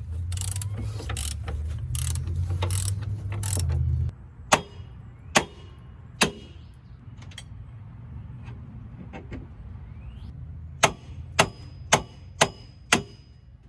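A power tool runs with a steady hum and a ratcheting tick for about four seconds while working the outer tie rod end nut of a C5 Corvette's front suspension. Then come sharp metal-on-metal clicks, three well spaced and then five about twice a second near the end, some with a short ringing tone.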